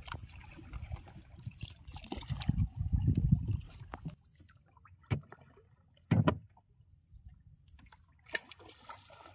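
Water splashing and lapping around a small wooden boat as it is worked along with a long oar, loudest in the first few seconds. It is followed by quieter water with a few sharp knocks.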